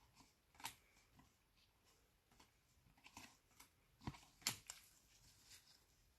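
Faint, scattered clicks and light taps of trading cards and packs being handled, with a small cluster of taps about three to five seconds in; otherwise near silence.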